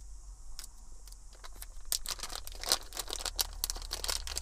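A small packet crinkling as it is handled and opened by hand, a few faint crackles at first, then a dense run of crinkling from about halfway in that grows louder toward the end.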